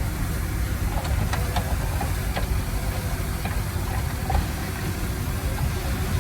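Engine of heavy earthmoving machinery running with a steady low rumble, with a few short clicks and squeaks between about one and two and a half seconds in.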